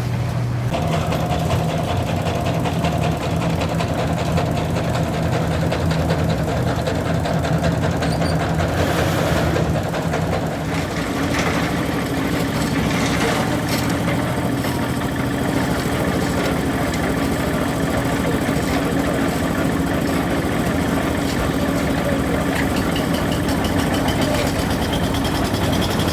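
Engine of concrete-pouring machinery running steadily, its note changing about a second in and again about ten seconds in.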